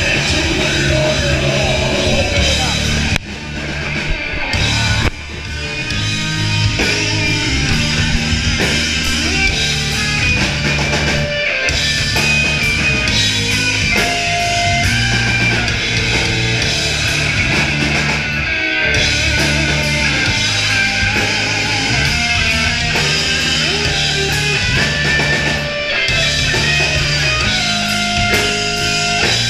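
Rock band playing live, loud through a club PA: distorted electric guitars, bass and drum kit. The band cuts out abruptly twice, about three and five seconds in, then comes back in.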